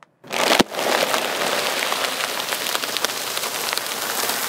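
A car tyre rolling over and flattening a sealed bag of cheese puffs: one sharp crack about half a second in, then a dense, steady crackle of puffs crunching and plastic crinkling under the tyre.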